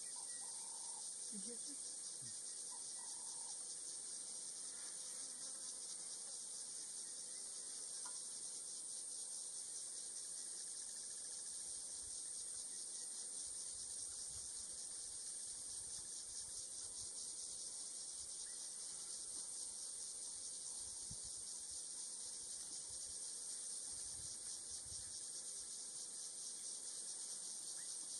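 Steady, high-pitched chorus of insects shrilling without a break across the bush, with a few faint low knocks now and then in the second half.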